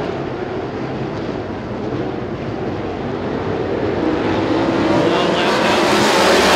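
A pack of sprint car engines at race speed, the engine notes wavering in pitch as the cars go through the turns, growing louder in the last couple of seconds as the field comes closer.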